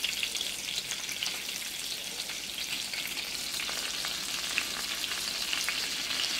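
Breaded cube steak frying in hot grease in a skillet: a steady sizzle with many small crackles as the freshly added raw piece cooks.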